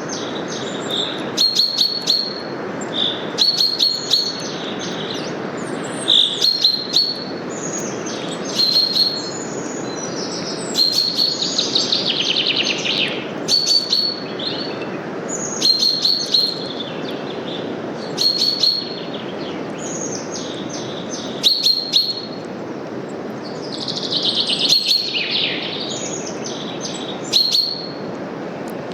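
Birds chirping in short high phrases that recur about every two seconds, with a couple of longer falling trills, over a steady rush of wind through forest leaves.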